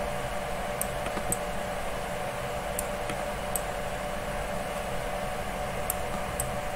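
Steady low hum and hiss, probably the computer recording the walkthrough, with faint sharp clicks of its keyboard or mouse controls in pairs about half a second apart, three times.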